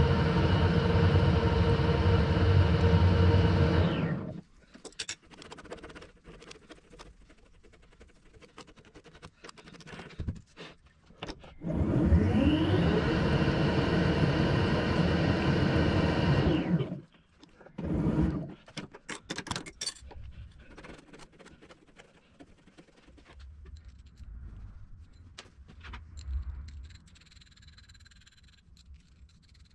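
A metalworking lathe running steadily, then stopping about four seconds in, followed by clicks and clatter of tools being handled. About twelve seconds in the lathe starts again, its pitch rising as it winds up, runs for about five seconds and stops abruptly, followed by more metal clicks and light handling.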